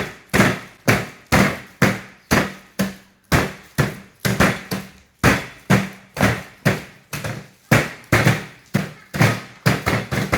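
A pestle (ulekan) pounding biscuits in a basin, crushing them, with sharp strikes repeating steadily at about two to three a second.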